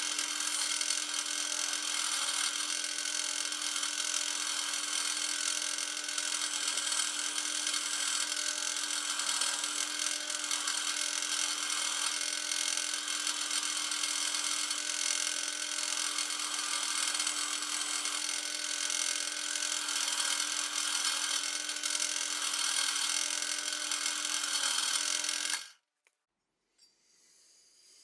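A power tool running steadily with a high, even whir, then stopping abruptly near the end.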